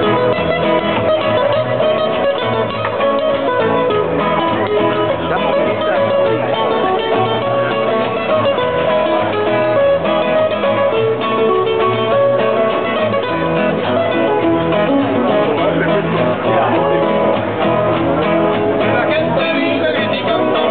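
Live music from a small group of acoustic guitars and other plucked string instruments playing together, running on without a break.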